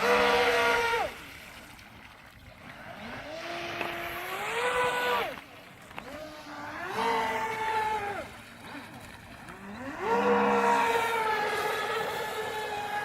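Radio-controlled model boat's motor revving in repeated bursts of throttle: four runs, each a whine that rises in pitch, holds, then drops away, the last one held on to the end.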